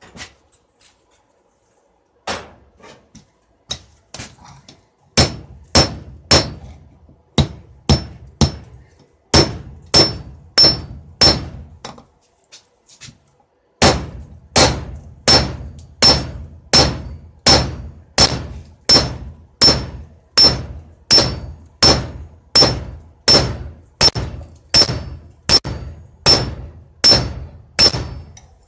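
Blacksmith's hammer striking steel on an anvil while forging a knife blade: a few light taps, then loud ringing blows that pause briefly about halfway and go on in a steady rhythm of a bit over one blow a second.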